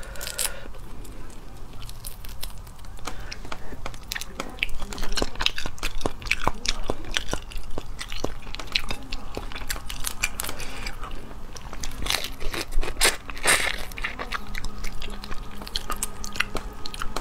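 Close-miked crackling and crunching of cooked crayfish shells being cracked and peeled apart by hand, with biting and chewing, in many sharp irregular cracks.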